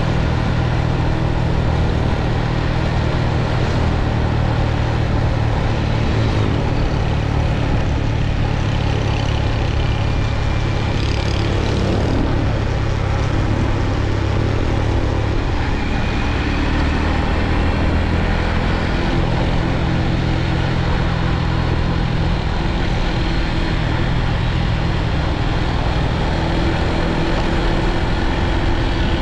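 Motorbike engine running steadily on the move, with wind noise on the microphone. The engine note changes about halfway through.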